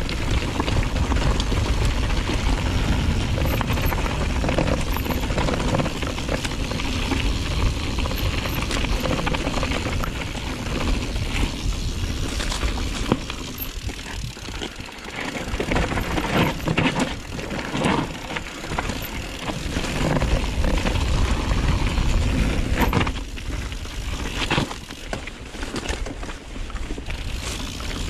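Wind buffeting the microphone of a moving mountain bike, with the clatter and rattle of the bike rolling over a rough trail.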